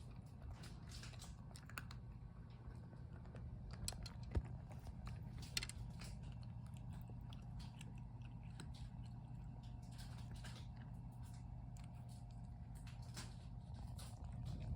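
A cat chewing and crunching food, with irregular crisp crunches throughout, the loudest a little after four seconds in, over a steady low hum.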